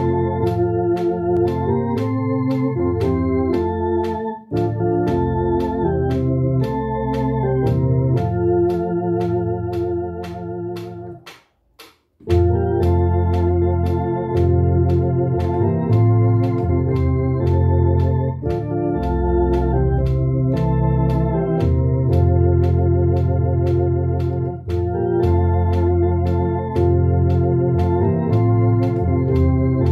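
Two-manual electronic home organ playing a hymn at a steady 116 BPM: sustained chords under a melody, with an even click about twice a second keeping time. The music breaks off for a moment about twelve seconds in, then resumes.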